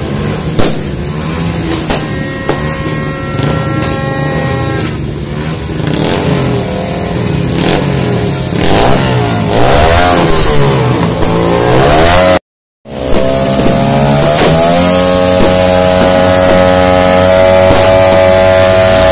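Motorcycle engines revving hard in rising and falling sweeps, then one held at high, steady revs near the end, with scattered sharp firework bangs. The sound drops out for a moment just past the middle.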